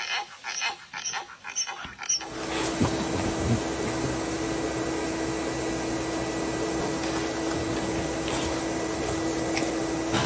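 A quick string of short, sharp sounds, about three a second, is followed about two seconds in by a steady whirring motor noise with a constant hum, which runs on and cuts off at the end.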